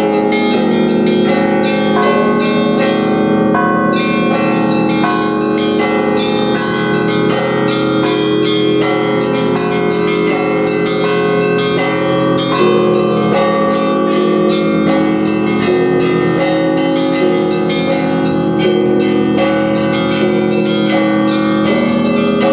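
Russian church bells ringing together in a continuous peal: a rapid, unbroken stream of strikes on smaller bells over the sustained ring of deeper bells.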